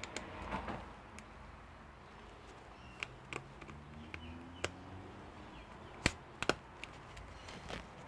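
Scattered sharp clicks and knocks as gloved hands handle an opened MacBook Air, with a brief rustle near the start and the loudest pair of knocks about six seconds in.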